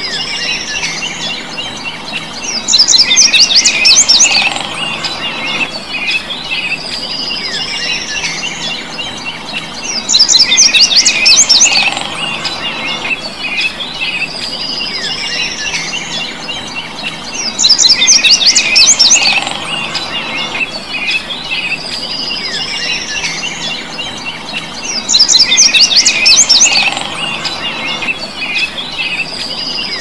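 A songbird singing the same phrase four times, about every seven and a half seconds: a high rising whistle followed by a loud, rapid trill. A steady chorus of other birds or insects runs underneath.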